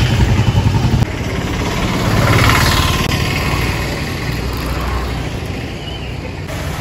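Motor vehicle engine running under steady road and traffic noise; a louder vehicle passes about two and a half seconds in.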